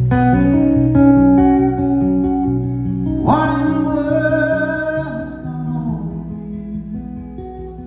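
Solo acoustic guitar playing a run of picked notes in a live performance. About three seconds in, a long held voice note slides up into pitch over it and then fades while the guitar carries on.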